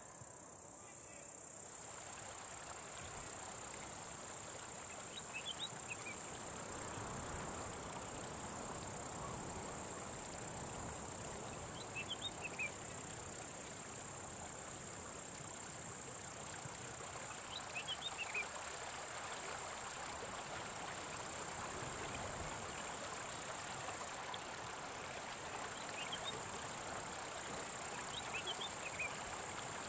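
Insects shrilling in a steady, high-pitched drone, with a few short, high chirps now and then.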